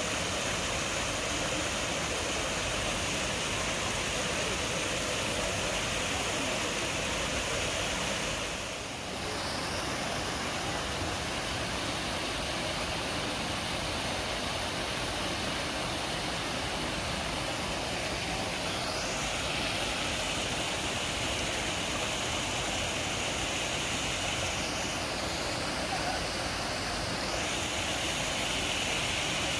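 Steady rushing outdoor background noise with no clear pitch, dipping briefly about nine seconds in.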